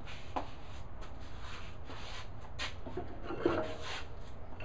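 Low steady room hum with a few faint clicks and a light knock of handling, a little over three seconds in.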